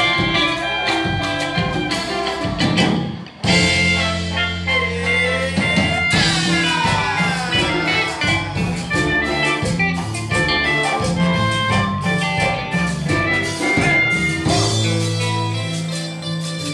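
A live band playing an upbeat song through the club's PA, stopping abruptly for a moment about three seconds in before coming back in at full level.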